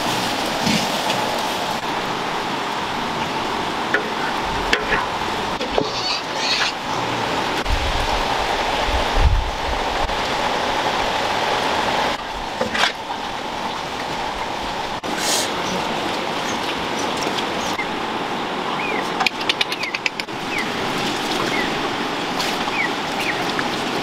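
A steady rushing background noise, with scattered clinks and knocks as the cooked duck is stirred in the wok and spooned onto rice.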